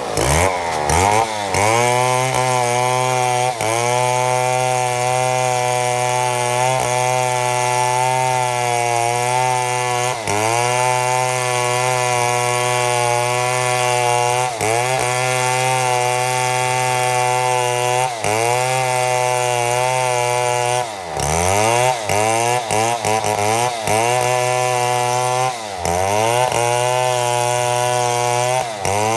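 Chainsaw running at full throttle as a chainsaw mill rips along a mahogany log. The engine holds a steady high pitch, and several times its pitch drops briefly and recovers as it bogs under load, most often in the last third.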